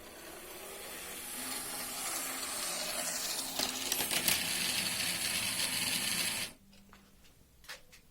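Model railway motor coach running along the track at speed step 102, its motor and wheels giving a steady running noise that grows louder as it comes closer, then cutting off suddenly about six and a half seconds in when it stops.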